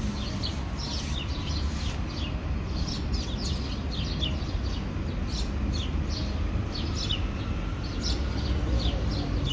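Small birds chirping: short, high, falling chirps repeating a few times a second, over a steady low rumble.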